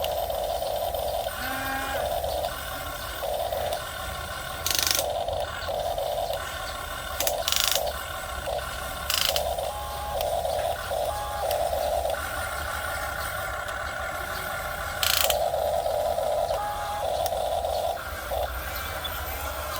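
Small electric gear motors of a radio-controlled model excavator whining in short on-and-off bursts as the machine works, the pitch shifting between segments. A few sharp clicks break in, about five, eight, nine and fifteen seconds in.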